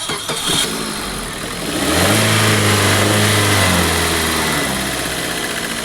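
Maruti Swift Dzire's engine started on its starter motor, freshly fitted with a new pinion gear: it catches about two seconds in, runs at a raised speed for a couple of seconds, then settles to a steady idle. No grinding from the starter, the sign that the starting noise is cured.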